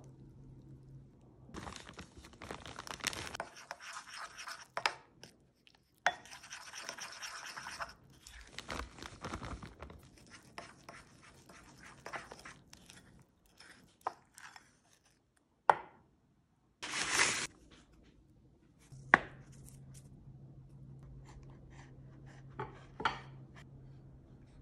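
Kitchen handling sounds in a run of short clips: a utensil stirring and scraping powdered-sugar icing in a bowl, and a knife cutting through puff pastry, with sharp clicks of the utensil and knife against bowl and board. There is a short loud burst of noise about two-thirds of the way through. A low steady hum runs under the quieter stretches.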